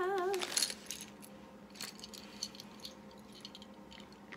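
A short hummed note with a wobbling pitch ends in the first half second, then light clicks and rattles of small plastic LEGO minifigure pieces being handled and tipped out of their packet.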